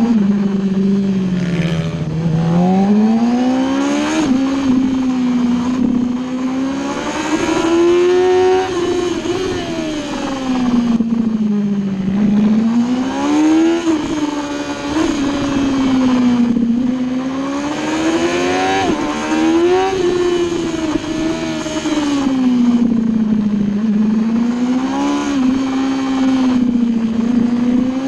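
Superbike engine heard onboard, revving up under acceleration and falling off into corners. The note climbs and sinks over and over, with several abrupt drops in pitch at gear changes.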